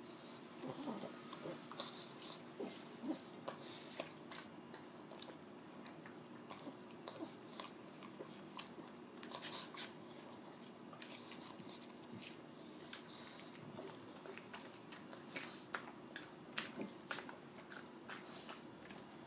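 A pug biting and chewing watermelon, with irregular crunching bites. The bites come thickest in the first few seconds and again toward the end.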